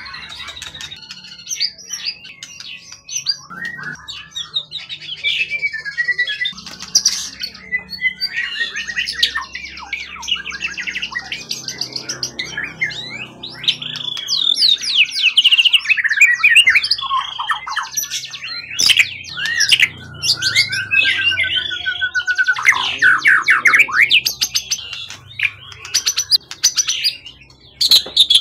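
Caged songbird singing a long, varied song of rapid whistles, trills and chattering phrases, louder in the second half.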